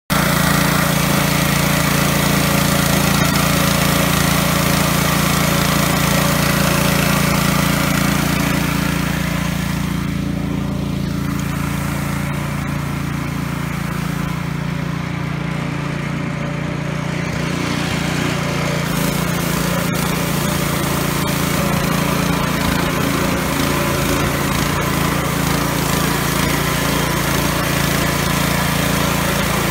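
MTD petrol power brush running steadily: its small single-cylinder engine drives the rotating bristle brush across block paving. The higher brushing hiss thins for several seconds in the middle, while the engine note carries on.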